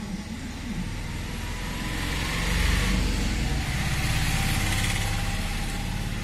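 A motor vehicle going by, its engine rumble and road noise swelling over a few seconds and easing off near the end.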